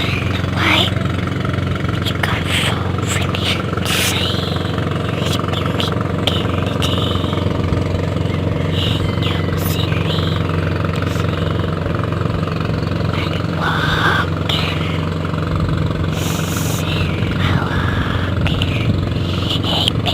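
A small engine running steadily at an even speed, its low drone unchanging throughout, with scattered short clicks and knocks over it.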